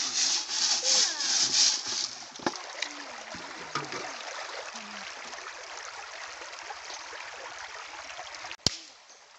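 Rhythmic rasping strokes, about three a second, of food being scrubbed in an aluminium pot of water, then a steady rush of water being poured and sloshed out of the pot into a shallow stream. A single sharp click near the end.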